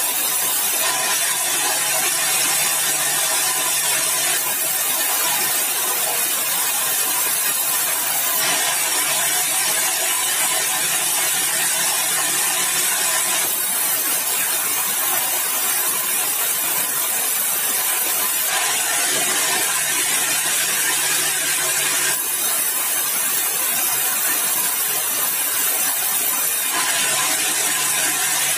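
Sawmill saw running and cutting yellow balau (bengkirai) timber: a loud, steady machine noise over a low motor hum, its tone changing abruptly every few seconds.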